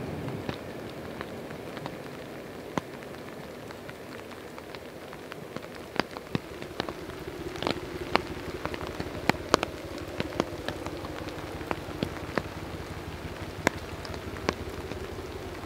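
Rain falling, with many irregular sharp drop ticks close by, over a faint, steady low hum that comes in about halfway.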